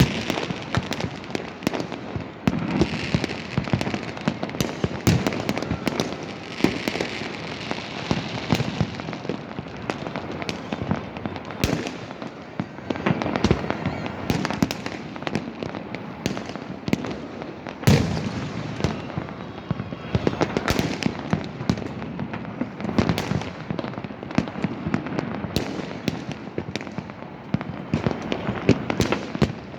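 Fireworks and firecrackers going off continuously: a steady barrage of overlapping bangs and crackling, with a few louder single bangs standing out.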